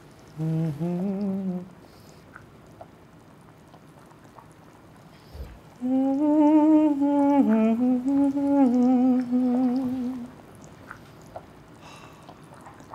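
A man humming with his mouth closed: a short rising hum about half a second in, then a longer hum of several held notes, stepping down in pitch, from about six to ten seconds in.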